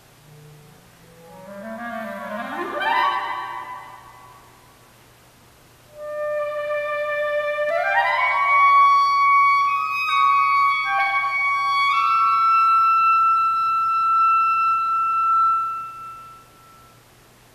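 Solo clarinet playing an unaccompanied contemporary piece. A quick run climbs from a low note and swells, then breaks off into a pause. Long held notes follow, joined by another fast upward run, ending on a high note held for several seconds that fades away.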